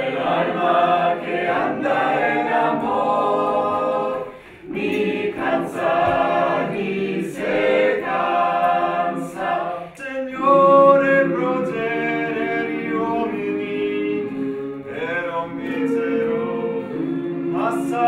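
A small mixed group of men and women singing together unaccompanied, with short breaks between phrases about four and a half and ten seconds in.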